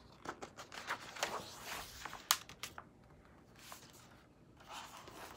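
Faint, scattered paper rustles and light taps of a picture book's pages being handled and turned, mostly in the first three seconds.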